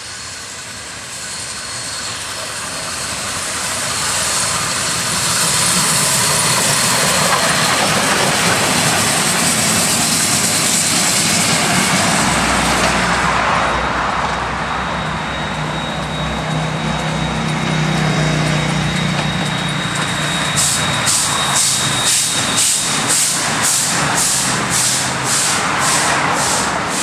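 DD17 class steam tank locomotive hauling a passenger train, a steady heavy rush of steam and running noise as it approaches and passes. From about two-thirds of the way in, a regular beat of roughly two strokes a second as the train rolls by.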